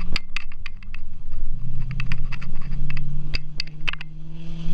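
Land Rover Discovery 1 V8 engine running at low revs, heard from inside the cabin, as the truck creeps through river water; its note dips about a second in and then settles. Many sharp clicks and scrapes come over the engine hum throughout.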